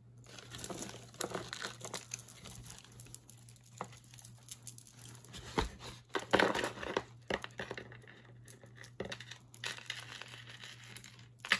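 Wrapping crinkled and rustled by hand, on and off, loudest about six seconds in, with scattered light clicks as jewelry pieces are handled.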